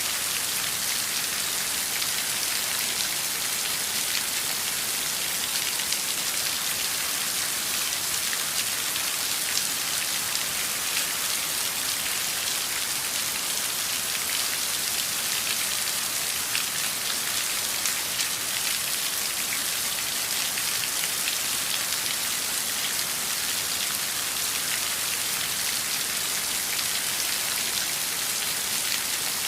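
Heavy rain falling steadily: a dense, even hiss of drops with many small individual drop ticks.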